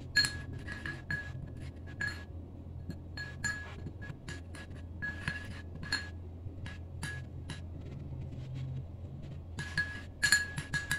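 A metal spoon stirring powder and oil into a paste in a small glass bowl, clinking against the glass again and again at an uneven pace, each tap giving a short ring. There is a quick flurry of clinks near the end.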